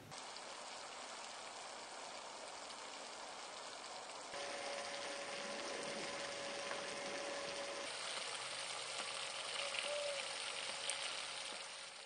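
Water spraying from a camp shower head and splattering down, a steady hiss that grows louder about four seconds in.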